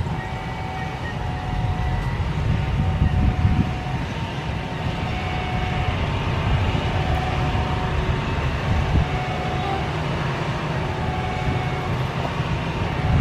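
Twin turbofan engines of a Boeing 737 jet at low taxi power as the aircraft rolls along the runway: a steady rumble with a faint whine that comes and goes.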